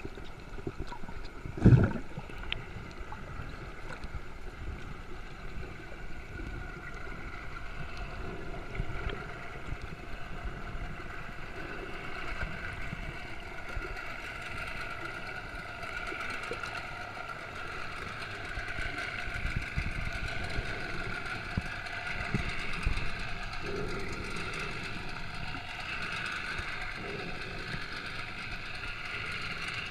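Boat engine running steadily over water noise, with one loud knock about two seconds in.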